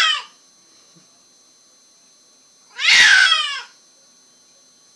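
A born-deaf white cat meowing very loudly: the end of one meow right at the start, then one long meow about three seconds in that falls in pitch at the end. Her loudness is put down to her deafness.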